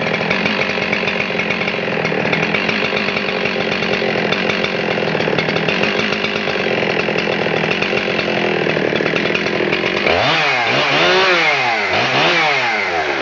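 Husqvarna 372 XPW chainsaw's 75cc two-stroke engine running at a steady speed, then revved up and back down twice near the end.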